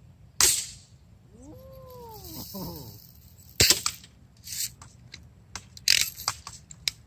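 BB gun shots at a gutted boombox: a sharp crack about half a second in and another about three seconds later, followed by several lighter clicks and clatters.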